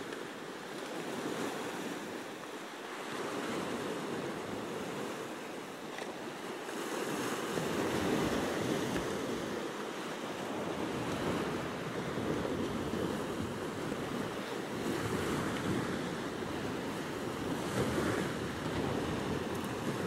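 Small waves of the Sea of Azov washing onto a sandy beach: a steady rush of surf that swells and eases, a little fuller from about seven seconds in.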